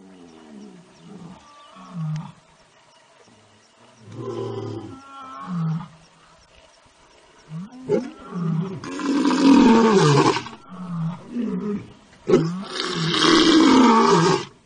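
Bengal tiger roaring: a series of shorter low calls, then two long, loud roars, one a little past halfway and one near the end.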